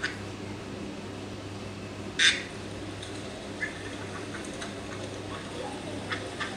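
Recorded mallard duck quack played through a phone's speaker by Google's 3D AR duck, one short loud quack about two seconds in, with a shorter faint one at the start. A few faint taps near the end, over a steady low hum.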